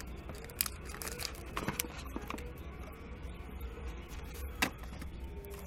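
Scattered light clicks and taps from handling a new smartphone, with a sharper click about four and a half seconds in, over a steady low hum.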